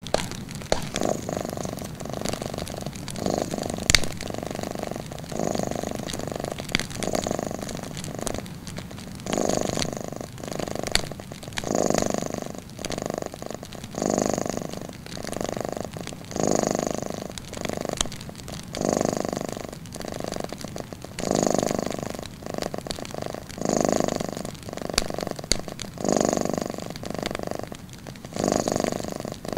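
A cat purring, the rumble swelling and easing with each breath about every two seconds. A wood fire crackles with a few sharp pops, the loudest about four seconds in.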